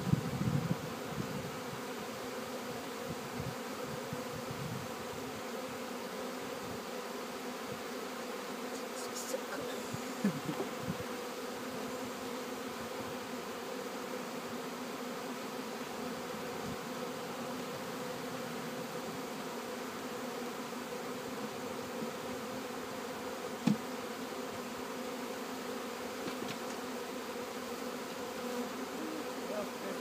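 Many honey bees buzzing in a steady hum around an open hive. A sharp knock sounds once about three-quarters of the way through.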